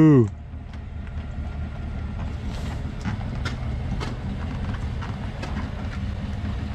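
Pickup truck's engine running low and steady as it backs a boat trailer down a grooved concrete boat ramp, with scattered light clicks and ticks. In the first moment a loud held tone cuts off with a falling pitch.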